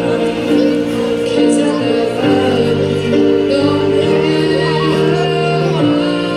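A young woman singing into a handheld microphone, amplified, with instrumental backing music under her voice. She sings in long held notes.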